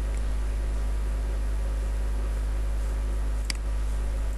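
Steady low electrical hum with background hiss, with a sharp computer-mouse click about three and a half seconds in and another at the very end.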